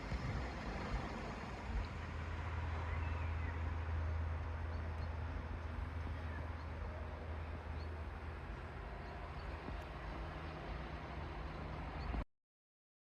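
Steady low engine hum and road noise of a moving car, heard from inside, cutting off suddenly near the end.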